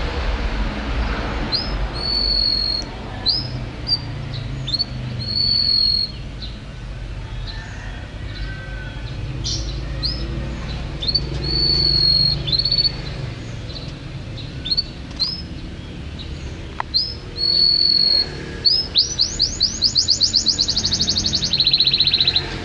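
Domestic canary singing: a run of short, high whistled notes and held whistles, breaking into a fast trill in the last few seconds. A steady low hum runs underneath.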